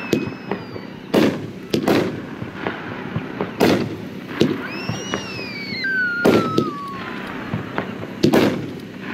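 A 500-gram consumer firework cake firing: a series of sharp booming reports, about seven spread over nine seconds, with a falling whistle around the middle.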